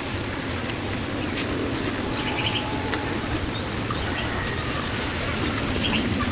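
A steady, high, pulsing insect trill over a constant rushing background noise, with a few faint clicks.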